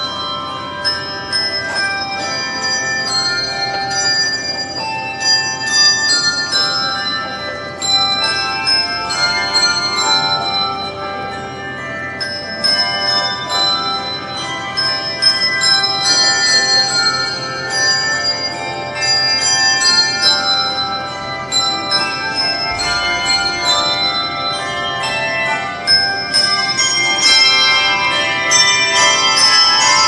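Handbell choir playing a piece: many tuned handbells struck in turn and in chords, their tones ringing on and overlapping. The ringing grows fuller and a little louder near the end.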